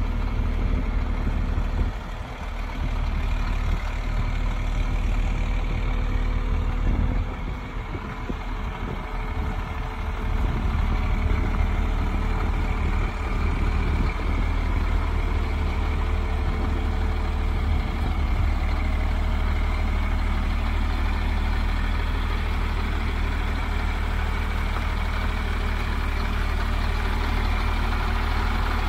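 Ford F-750 medium-duty truck's engine idling steadily with a low, even hum.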